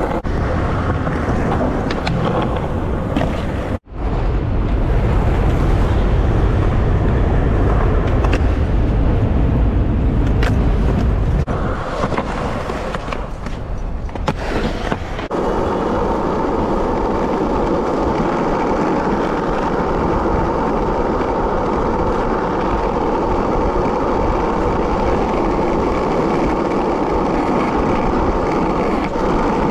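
Skateboard wheels rolling over concrete, a heavy rumble broken by a few sharp clacks of the board. From about 15 s on it becomes a steadier, even rolling noise as the board runs along street asphalt.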